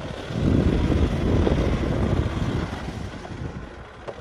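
Tractor engine running, heard with wind buffeting the microphone; the rumble swells in the first half and eases off toward the end.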